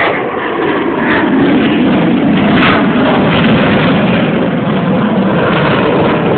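Loud jet noise from an F-22 Raptor's two F119 turbofan engines, a steady rushing sound that swells over the first second and then holds.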